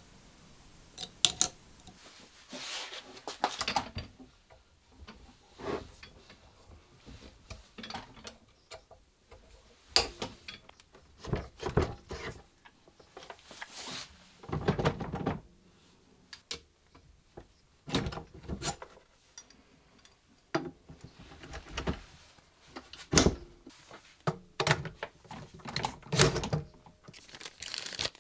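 Scattered clicks, knocks and brief scraping sounds of parts and tools being handled at a workbench, including the metal clamps of a bench drill stand. A small plastic zip bag crinkles near the end.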